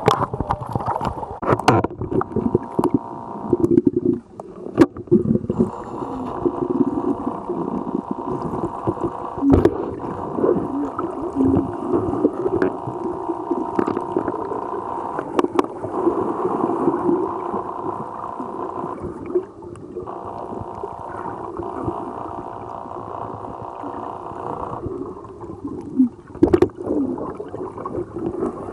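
Underwater sound during a pole-spear dive: a steady drone of several held tones over churning, gurgling water, with scattered sharp clicks.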